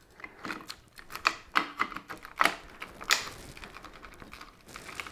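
Irregular light clicks and knocks, about a dozen, loudest around the middle and sparser towards the end, as the lawn mower's plastic handle parts are handled and fitted together during the repair.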